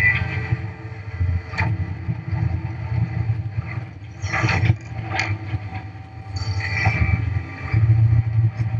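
Engine of a brush-clearing machine running steadily, heard from inside its cab. Several short bursts of rushing noise come through over the engine, about a second and a half in, around the middle, and again near the end.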